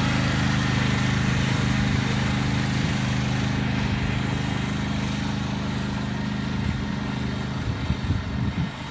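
Riding lawnmower's small engine running at a steady pitch, slowly growing fainter, with a few irregular low thumps near the end.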